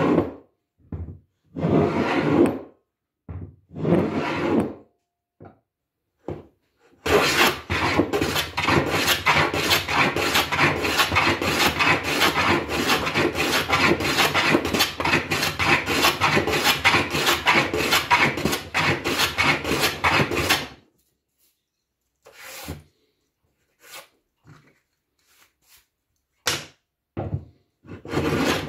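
Stanley No. 78 rabbet plane cutting a rabbet along a board edge, its spur engaged ahead of the iron: a few short separate strokes, then about fourteen seconds of quick continuous planing, then a handful of short scrapes near the end.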